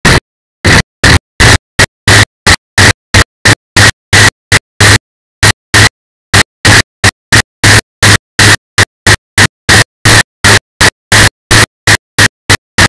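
Broken, glitching audio track: short bursts of loud, harsh static that switch on and off about two to three times a second, with dead silence between each burst.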